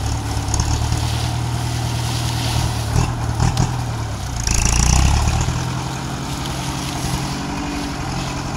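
Old John Deere tractor's engine running steadily as it works a hydraulic sugarcane grab loader. There are a few sharp knocks about three seconds in, and the engine gets louder for about a second near the middle.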